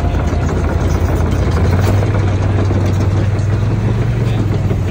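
An engine idling with a steady low hum, growing stronger in the middle and easing off near the end.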